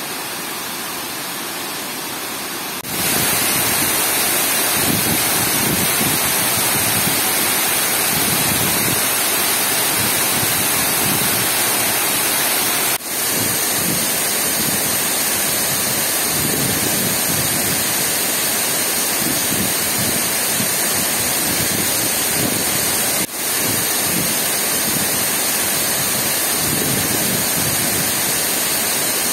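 Water pouring over a masonry dam spillway and a low stone weir, a steady rush of falling water. It gets louder about three seconds in and dips briefly twice.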